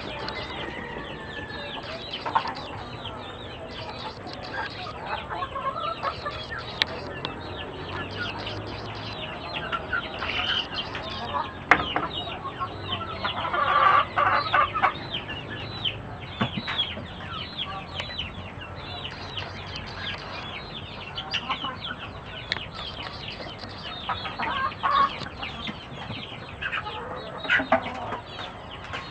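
A flock of chickens calling continuously: many short, high peeps and clucks overlapping, with a louder burst of clucking about halfway through. A single sharp knock comes shortly before that burst.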